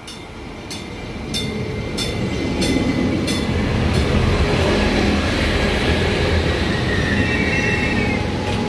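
Stadler GTW diesel multiple unit running into a station platform and passing close by: engine rumble and wheel noise swell over the first three seconds and then hold. A ding repeats about every two-thirds of a second during the approach, and a squeal from the wheels or brakes comes in near the end as the train slows.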